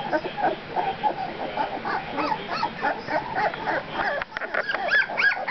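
A litter of two-week-old Labrador retriever puppies squeaking and whimpering: a continuous stream of short, high cries that rise and fall in pitch, several overlapping at once.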